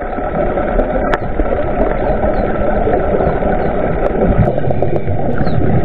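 Steady, muffled rush and rumble of water picked up by a camera underwater, with a single sharp click about a second in.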